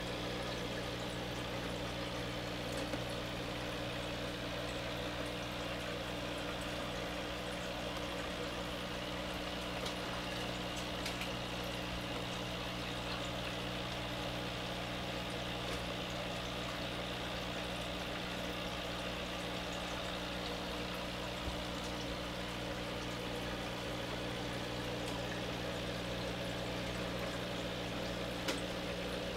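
Aquarium air stone bubbling steadily, a continuous fizzing rush of water, over a steady low electrical hum.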